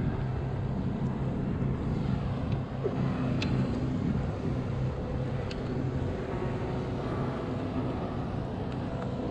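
A steady low engine drone under a haze of outdoor noise, with a few faint clicks.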